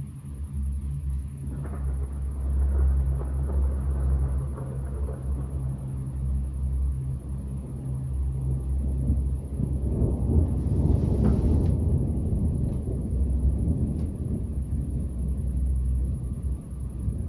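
Distant thunder rumbling low and rolling, swelling about two seconds in and again, louder, around ten seconds in.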